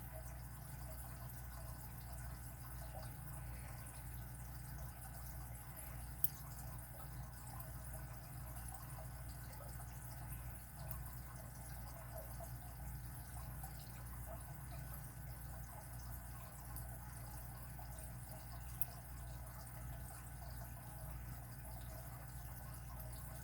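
Faint scraping and clicking of a Lishi SC4 pick working inside a Kryptonite KS22 Schlage padlock, with two sharper ticks, one about six seconds in and one near the end, over a steady low hum.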